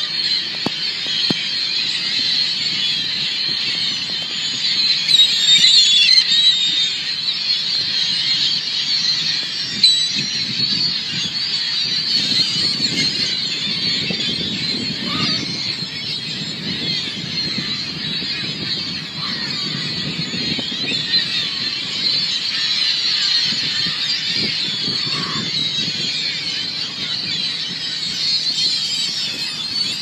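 A huge flock of ring-billed gulls calling all at once, a dense, unbroken din of overlapping high cries, with a low rushing noise underneath.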